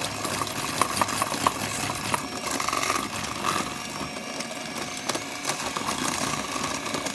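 Electric hand mixer running on low, its beaters creaming softened butter and sugar in a stainless steel bowl: a steady motor whir with frequent sharp clicks.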